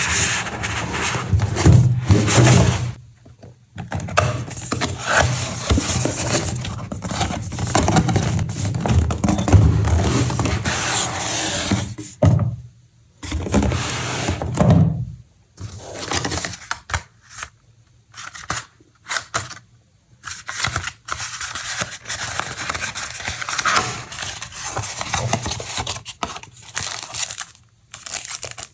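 Graphics card retail box and packaging being opened and handled by hand: irregular scraping and rustling of cardboard and plastic that stops and starts, with short gaps and a few sharp clicks.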